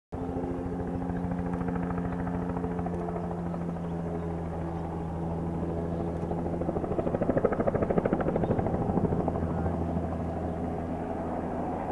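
Helicopter flying nearby, its rotor beating in a fast, steady pulse, swelling louder for a couple of seconds past the middle and then easing back.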